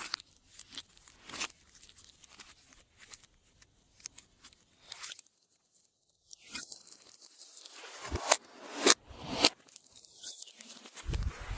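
Slime being worked by hand, with irregular sticky crackling and popping clicks and a few louder snaps about two thirds of the way through. There is a brief near-silent pause about halfway.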